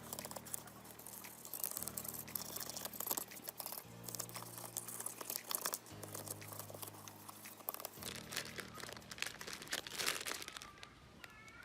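Dense, irregular scratching and crackling from hand work on the old radio, over quiet background music whose low chords change about every two seconds.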